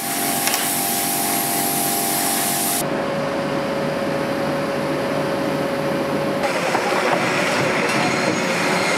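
An oxy-fuel cutting torch hissing as it cuts steel. About three seconds in, the sound changes abruptly to the steady running of a Liebherr LTM 1300-6.2 mobile crane's engine, and it changes abruptly again a few seconds later to a noisier mix of site sound.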